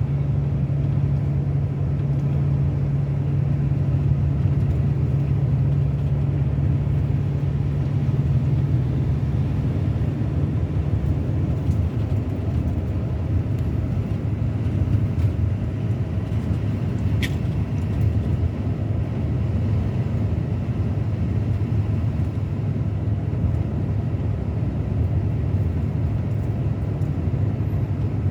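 Scania K360 coach's diesel engine running steadily, its hum dropping to a lower pitch about nine seconds in. A brief high squeak about halfway through.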